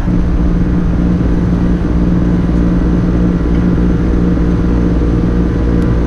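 Air-conditioning condensing unit running: a steady compressor hum and fan noise.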